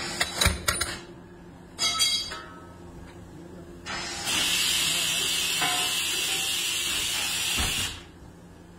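Metal tools clinking on a tyre-remoulding mould's clamps, then a steady loud hiss of pressure venting from the mould for about four seconds that cuts off sharply.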